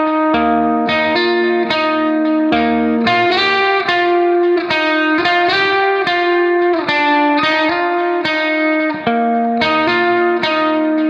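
Instrumental background music: a guitar picking notes at a steady pace over held chords, with a low bass note coming in now and then.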